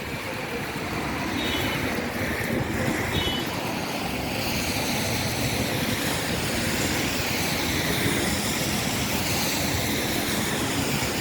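Traffic on a rain-wet city street: a steady hiss of tyres swishing over wet road, with vehicles passing. Two brief high squeaks about a second and a half and three seconds in.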